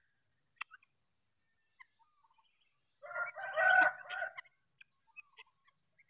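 Helmeted guineafowl calling: a burst of harsh, rapid cackling about three seconds in, lasting about a second and a half, with scattered short chirps and clicks around it.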